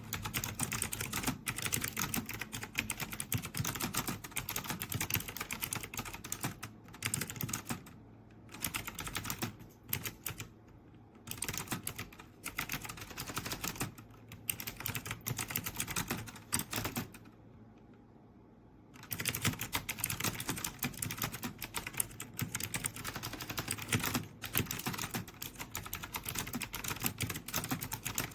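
Fast typing on an AULA F2088 mechanical keyboard with clicky blue switches: a dense clatter of keystrokes, with a pause of about two seconds a little past the middle.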